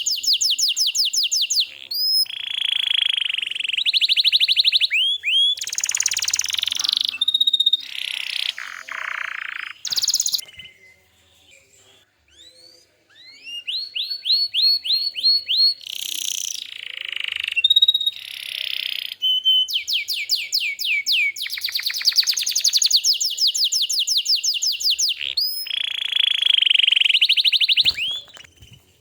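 Domestic canary singing: long rolling trills of rapid repeated notes, with a pause of about two seconds near the middle.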